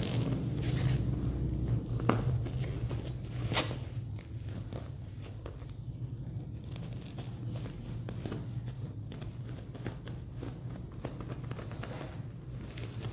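Black plastic parcel wrapping crinkling and rustling as it is pulled at and cut open, with a few sharp crackles in the first four seconds and softer rustling after that. A steady low hum runs underneath.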